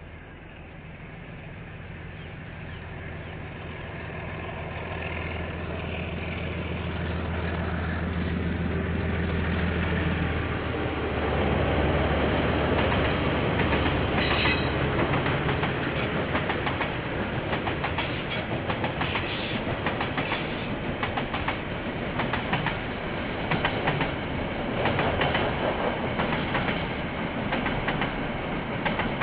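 KiwiRail diesel locomotive approaching, its engine growing louder over the first ten seconds. It is followed by the train's cars rolling past with a steady clatter of wheels over the rail joints.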